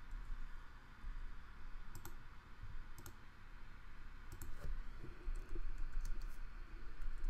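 Computer clicks at work: two single clicks a second apart, then a quick run of keyboard key presses as "mod 106" is typed, over a low steady hum.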